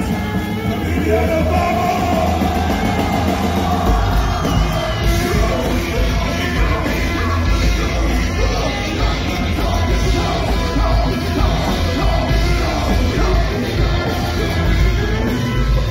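Loud rock band music with voices yelling over it; a heavy bass beat comes in strongly about four seconds in.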